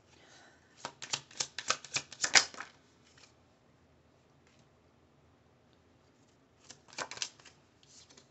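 A deck of oracle cards shuffled by hand: a quick run of crisp card snaps lasting about two seconds, then a shorter flurry near the end as a card is drawn.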